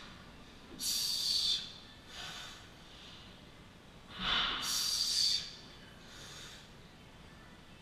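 A man's heavy breathing under a 225 lb barbell during back squats. Two loud breaths come about three and a half seconds apart, one with each rep, and each is followed by a softer breath.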